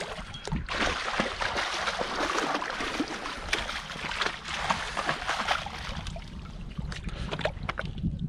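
Water splashing and slapping as a hooked trout thrashes in a landing net at the surface, busiest for the first six seconds or so and then settling.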